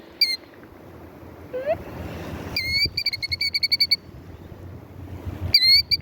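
A nesting mother bird's sharp alarm calls: one call right after the start, a single call followed by a quick run of short clipped notes around the middle, and a few more calls near the end, over a low rumble of wind on the microphone.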